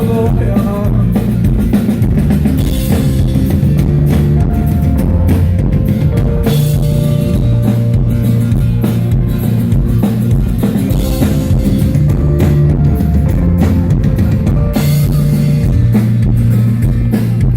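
Rock band playing an instrumental break live: drum kit with a steady bass drum, held bass notes and guitar, with no singing.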